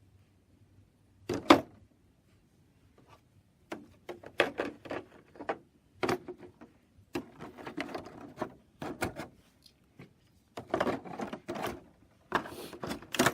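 Small wooden toy train pieces and a cardboard calendar being handled: scattered knocks, clicks and rustles as pieces are set into their compartments, the sharpest knock about a second and a half in.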